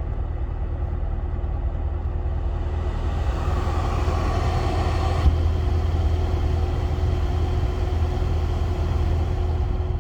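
Chevrolet C7 Corvette V8 engine running with a steady low rumble and a thin steady tone over it. A louder band of sound builds from about three seconds in and cuts off suddenly halfway through. This is the odd engine noise the owner is asking about.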